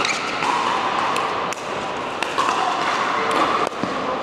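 Pickleball paddles striking a plastic ball during a rally on an indoor court: several sharp pops a second or so apart over the noise of a busy hall.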